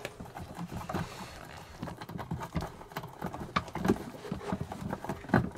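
Irregular small clicks and knocks as the water-supply line fitting on an RV toilet is turned counterclockwise by hand and worked loose from its connection, with a few louder knocks in the last two seconds.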